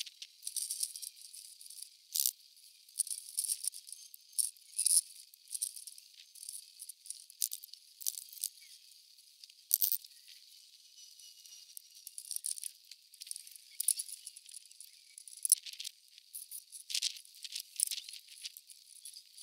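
Hand sanding: 600-grit paper on a sanding block scrubbed in uneven strokes over the painted steel bonnet of a Ford Escort Mk1, flatting it back ready for primer. It comes through as a thin, high, scratchy hiss, broken by a few sharper clicks.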